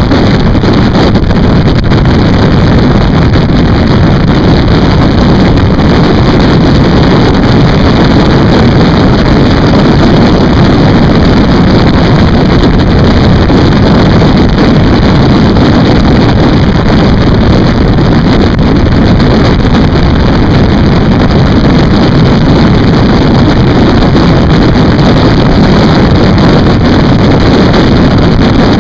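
Motorcycle riding at steady road speed: loud, constant wind rush on the microphone mixed with engine and road noise, with no change through the stretch.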